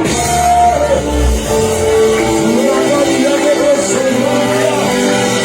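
Live worship music: a sung melody with held and sliding notes over steady instrumental backing.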